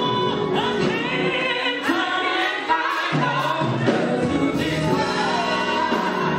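Gospel singing through microphones: a lead voice with other voices joining in.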